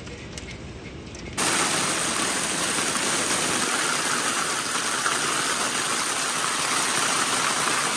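Hail and heavy rain pouring down. It is quieter at first, heard from behind window glass, then from about a second and a half in it is loud, steady and close as hailstones pelt the ground and patio.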